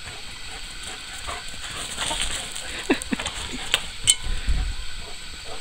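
A dog running and scrabbling across soft, muddy ground: scuffs and a few sharp clicks, with a few short hen calls about halfway through.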